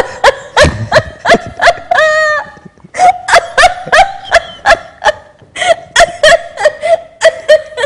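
A person laughing hard and high-pitched in rapid pulses, about three a second, with one drawn-out wheezing note about two seconds in.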